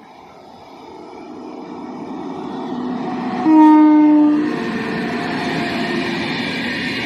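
Indian Railways train approaching, its running noise growing steadily louder. About three and a half seconds in, the locomotive sounds one horn blast of about a second, dropping slightly in pitch, and then the train runs by with a steady rumble.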